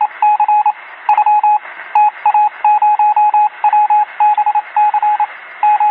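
Electronic beeps at one steady pitch, sounded as quick clusters of short pips with brief gaps between clusters, over a steady hiss with a thin, telephone-like sound.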